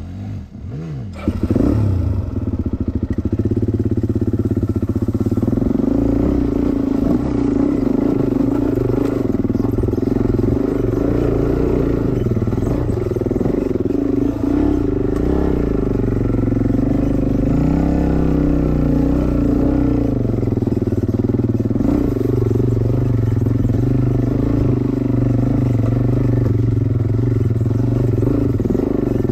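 Suzuki dirt bike engine pulling away about a second in, then running steadily under load up a rutted dirt trail, with a brief change in revs around the middle.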